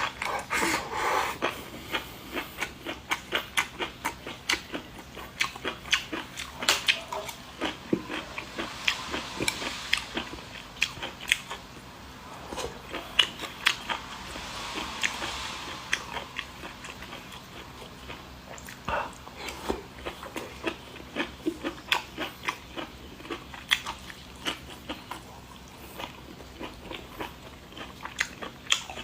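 Close-miked mukbang eating: a person chewing and biting food, with many quick wet smacks and crunches at an uneven pace. Two longer airy hissing sounds come about a third of the way in and again around the middle.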